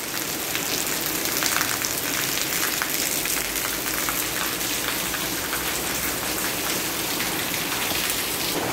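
Steady rain of moderate intensity falling on tiled paving and a lawn: an even hiss with many close, sharp drop splashes.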